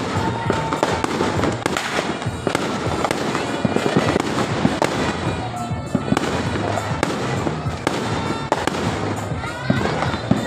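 Fireworks going off continuously: dense crackling with many sharp bangs and a few short rising whistles, over music playing in the background.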